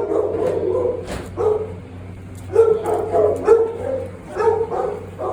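A dog barking repeatedly, in short clusters of barks.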